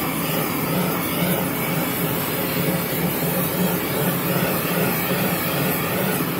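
Oxy-fuel torch flame burning with a steady rushing hiss as it preheats a thick cast iron casting before welding.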